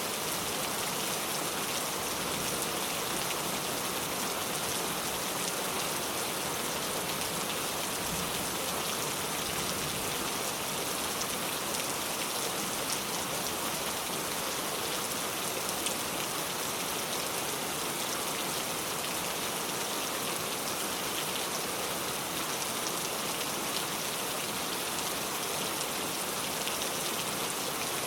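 Steady rain falling, a dense even hiss with fine drop patter on a surface.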